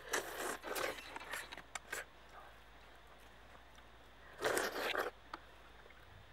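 A ripe palm fruit being bitten into and its fibrous skin torn apart by hand: a run of short crunchy tearing sounds over the first two seconds, then one longer tear about four and a half seconds in.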